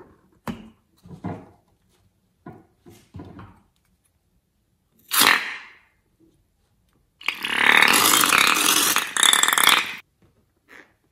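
Rubber balloon's neck sputtering as its pink slime filling and air are squeezed out onto slime in a bowl: a short sharp burst about five seconds in, then a long sputter of about three seconds that stops suddenly. Before it, a few short crackles as the balloon is handled.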